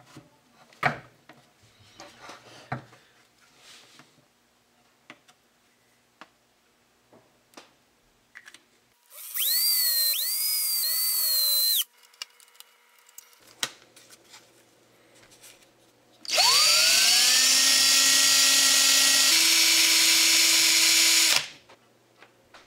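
Small electric drill run in two bursts. The first, about nine seconds in, is a few quick spin-ups lasting about two and a half seconds. The second, from about sixteen seconds, speeds up and runs steadily for about five seconds before stopping abruptly. Before these come a few light knocks and clicks of parts being handled.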